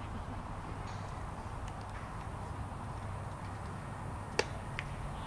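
Open ballfield ambience with a steady low rumble, broken about four seconds in by one sharp crack of a pitched baseball striking home, then a fainter click.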